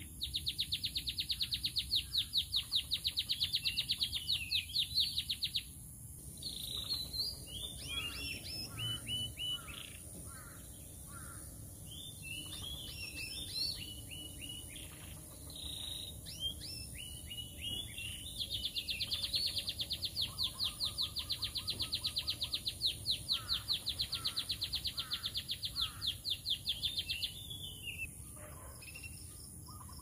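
Male domestic canary singing: a long, rapid trill of evenly repeated high notes, then a run of shorter varied warbling phrases, then a second long trill lasting about nine seconds.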